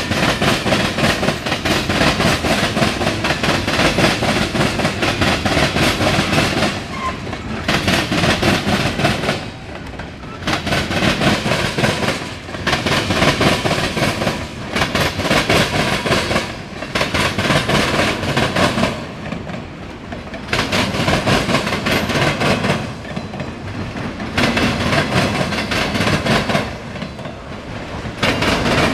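Freight train cars rolling past close by, steel wheels clickety-clacking over the rail joints, the sound swelling and dipping every two to three seconds as each car goes by. Tank cars give way to autorack cars.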